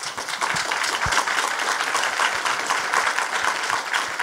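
Audience applauding: a roomful of people clapping, swelling in at the start and then holding steady.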